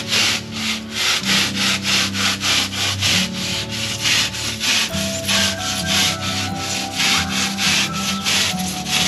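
Hand saw cutting grey EPS insulation board, rasping back and forth at about three strokes a second.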